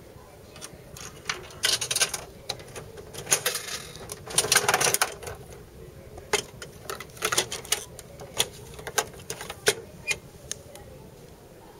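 Gacha capsule-toy machine being worked by hand: coins going in and the dial turning with a series of mechanical clicks and rattles, then a plastic capsule knocking about in the outlet as it is taken out.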